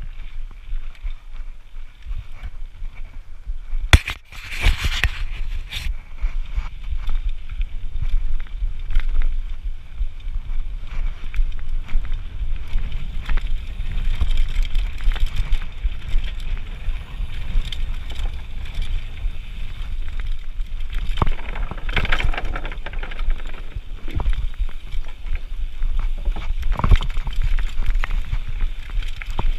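Mountain bike riding down a dirt and gravel trail, heard through a handlebar-mounted camera: a steady rumble of tyres over the ground, bike rattle and wind on the microphone. A sharp knock comes about four seconds in, with louder clattering over rough ground twice later on.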